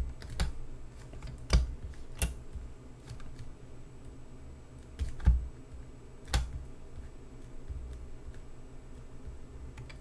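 Computer keyboard keystrokes and clicks, irregular and scattered, with a handful of louder taps spread through.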